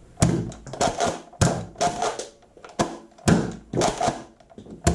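About a dozen sharp plastic clacks and thunks, roughly two a second, with the loudest near the end: a Nerf Modulus Mediator foam-dart blaster being worked and fired, with darts knocking into the can targets.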